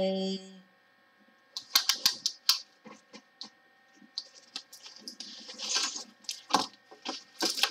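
Handling noises from a diamond painting canvas and its plastic cover being laid out and measured with a soft tape measure: a string of sharp clicks and taps about two seconds in, then crinkling rustles of the plastic film.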